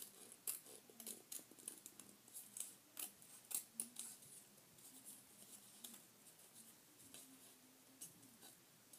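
Scissors snipping paper while cutting a small circle out of a sheet: a string of quiet snips, close together for the first four seconds or so, then fewer and more spread out.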